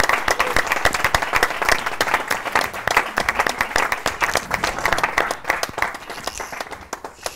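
Audience applauding, dense clapping that thins out and fades away toward the end.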